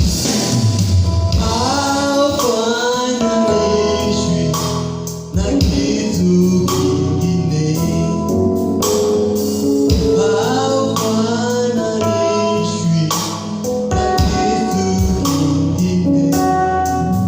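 Gospel worship song: singing over a band with drums, guitar and bass.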